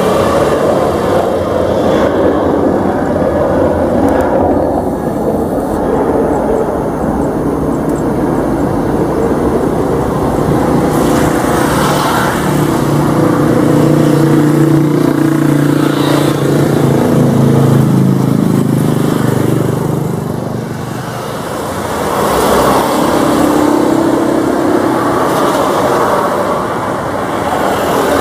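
Boeing 737 jet airliner's engines at take-off thrust: a loud, continuous jet roar as it rolls down the runway and climbs away, with a low drone that swells in the middle.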